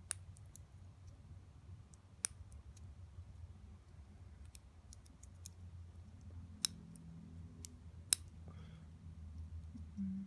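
Sparse small clicks and ticks of a metal pin picking at the plastic terminal lock inside an automotive coil pack connector, with four sharper clicks among fainter ones, over a faint steady low hum.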